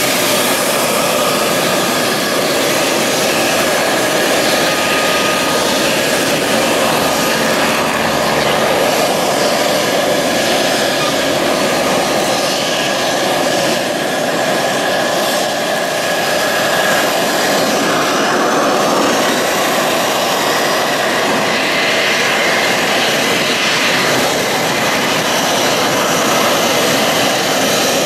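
F-16 fighter jet's single turbofan engine at taxi power, a loud, steady jet rush and whine as the jet taxis.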